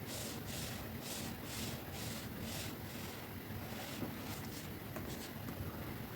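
Stylus strokes scratching across a drawing tablet's surface, about three quick strokes a second for the first couple of seconds, then a few lighter ticks. A steady white-noise hiss runs under them.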